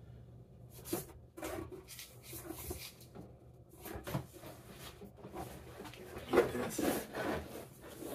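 Thick 6/3 electrical cable being hauled up and fed through wooden ceiling joists: irregular rubbing and scraping of the cable's sheathing, with knocks against the wood, the loudest about six seconds in.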